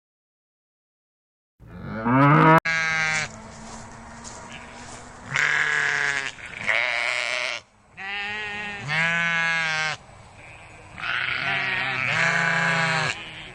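Silence, then a cow's moo that cuts off abruptly about two and a half seconds in, followed by sheep bleating: about six loud, wavering calls, each around a second long, with fainter bleats in between.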